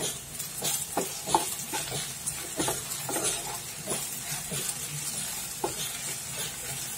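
Wooden spatula stirring and scraping sliced okra and onions in a nonstick frying pan, with irregular knocks against the pan over a light sizzle of the vegetables frying in oil.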